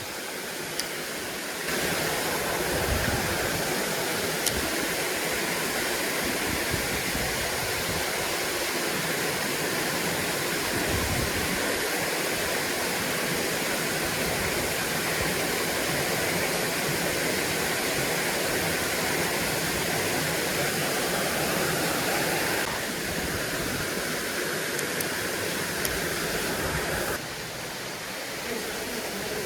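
Steady rushing of water pouring over a spillway. It gets louder about two seconds in and drops back a little near the end.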